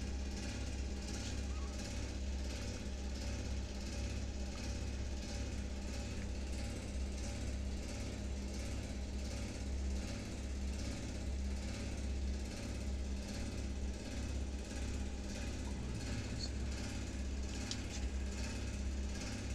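Mother cat purring steadily in a low, continuous rumble that swells and dips with her breathing as her kittens nurse and sleep against her.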